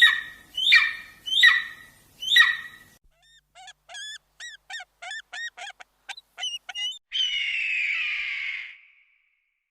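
Bird calls: four loud harsh squawks, then a rapid run of short, high, chittering notes, then one long harsh screech.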